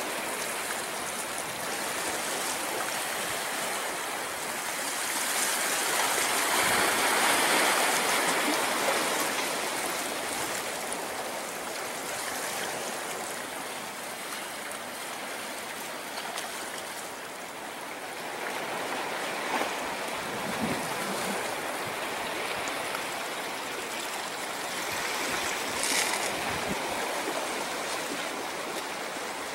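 Ocean surf on a beach: a steady rush of washing water that swells about a quarter of the way in and then eases.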